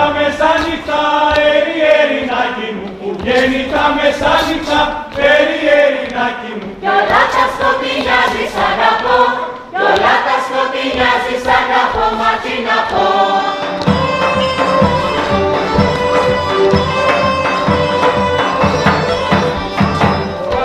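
Live Thracian folk music: a group of voices sings a folk song in unison over the band. The daouli's beat drops out about two seconds in and returns as a steady pulse about fourteen seconds in.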